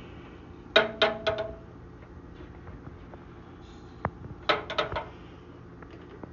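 Raw eggs knocking against the bottom of a metal non-stick pot of water as they are set in by hand. There are two short clusters of quick clicks, each with a brief ring from the pot, about a second in and again about four and a half seconds in.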